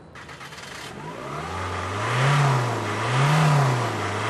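Car engine revving, swelling in about a second and a half in and then rising and falling in pitch about three times, roughly once a second.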